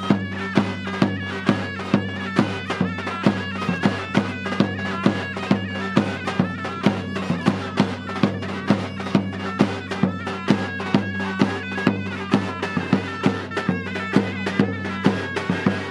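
Turkish folk dance music for a halay line dance: a reedy, bagpipe-like melody over a steady low drone, driven by a regular drumbeat.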